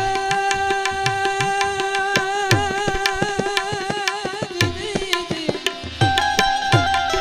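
Bhajan music: tabla keeping a steady rhythm, its bass strokes bending down in pitch, under one long held melodic note that wavers in the middle and slides down about five and a half seconds in.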